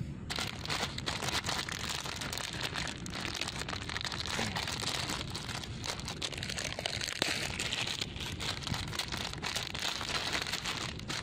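Plastic food packet crinkling and rustling as hands work it open, a dense run of irregular crackles over a steady low rumble.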